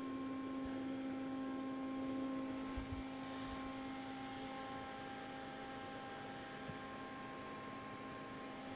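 TIG welding arc on header tubes buzzing steadily: a constant, even hum with a faint hiss over it.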